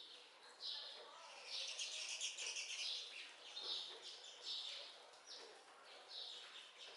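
Birds calling: short chirps repeated every half second or so, with a longer rapid trill between about one and a half and three seconds in.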